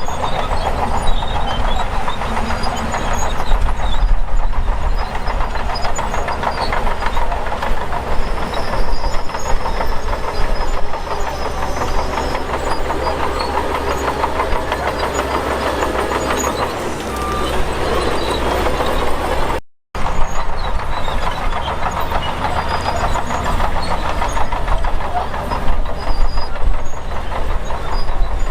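Heavy earthmoving machinery at work: diesel engines running under load with rattling and clanking, broken by a brief gap about two-thirds of the way in.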